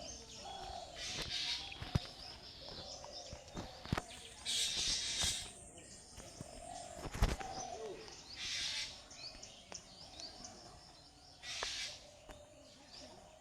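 Birds chirping in an outdoor ambience, broken by several short bursts of hissy noise and a few sharp knocks.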